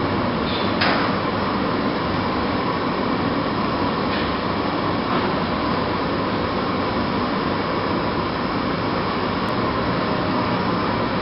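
Two-line plastic bag cutting machine running steadily, a dense mechanical hum with a faint steady tone, and a sharper click about a second in.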